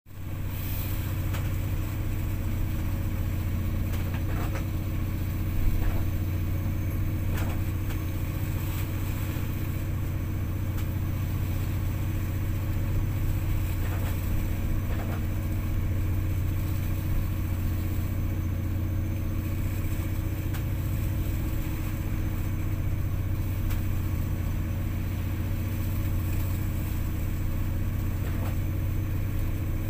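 Steady low drone of a ship's engines and machinery heard from inside the wheelhouse, with a few faint knocks.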